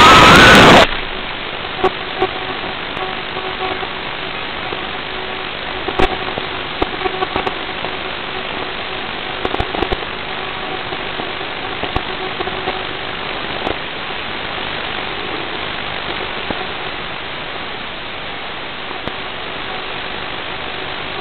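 The brushless motors of an HGLRC Veyron 35 CR FPV quadcopter give a loud high whine that cuts off abruptly under a second in as the drone lands and disarms. After that there is a steady hiss with faint tones and occasional clicks.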